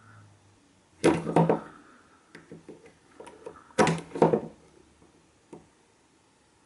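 Handling noise: two short bursts of clicks and knocks, about a second in and near four seconds in, with a few fainter clicks between and after, as multimeter test probes are pressed and shifted on an ignition coil's terminals.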